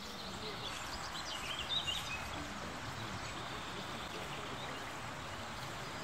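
Steady rush of water from a forest waterfall and its creek. A small bird chirps a few times about a second and a half in.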